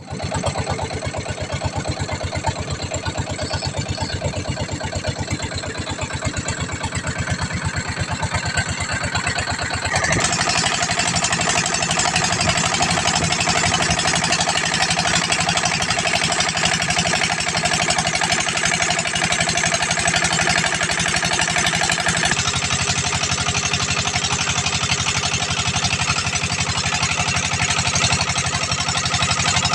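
A small engine running steadily with a fast even beat; about ten seconds in it grows louder and brighter, and it shifts slightly again later on.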